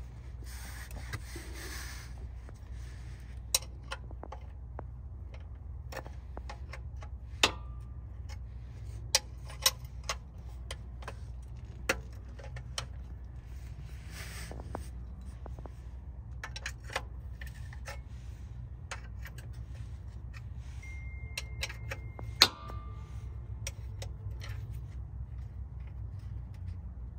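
Scattered sharp metallic clicks and clinks of hand tools and the oil-pan drain plug being handled, as the drain plug goes back into the pan, the loudest about 22 seconds in. A steady low hum runs underneath.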